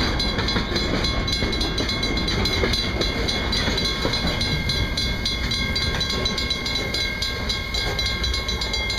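Freight train rolling past at a road crossing: a steady, continuous rumble of wheels on rail, with a high, fast repeating ring over it.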